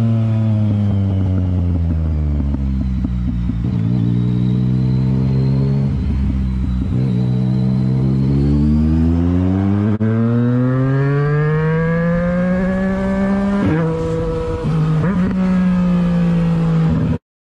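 Motorcycle engine under way: it eases off with the pitch falling, holds low for a few seconds, then climbs steadily under acceleration, drops twice in quick succession past the middle as it shifts up, and revs again before the sound cuts off abruptly near the end.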